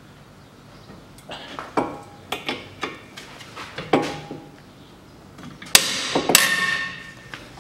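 Socket bar and spanner working a tight strut-to-knuckle bolt on a car's front suspension: a run of metal clicks and knocks, then two loud ringing metallic bangs about two-thirds of the way in. The bolt was tightly torqued.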